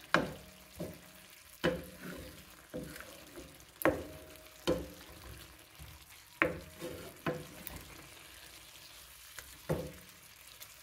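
Wooden spoon stirring purslane in a simmering sauce in a nonstick frying pan. The spoon knocks and scrapes against the pan about seven times at irregular intervals, over a faint steady sizzle.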